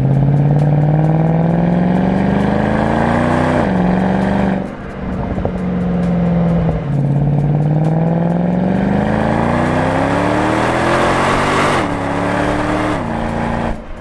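Mercedes CLK63 AMG's M156 6.2-litre V8 accelerating hard twice, the engine note climbing steadily through each gear and dropping sharply at each upshift of its automatic gearbox.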